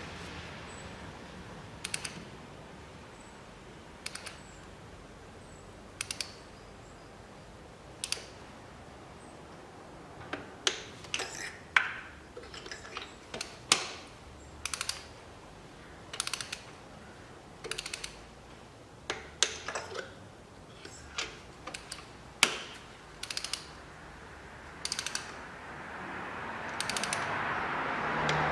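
Torque wrench ratchet clicking in short strokes as new spark plugs are tightened, at first about one click every two seconds, then in quicker clusters of clicks. Near the end a rushing noise builds.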